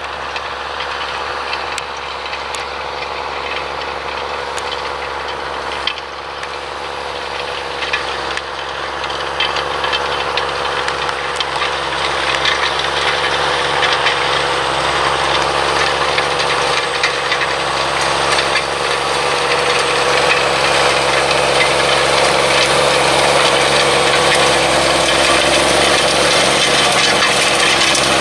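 Claas Xerion 3300 tractor engine running steadily under load while pulling a Köckerling cultivator through the soil, with a few sharp clicks. It gets steadily louder as the tractor approaches.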